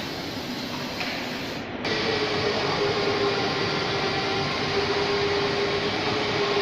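Automatic hydraulic-cylinder welding machine running: a steady mechanical noise that changes abruptly about two seconds in, after which a steady hum runs under it.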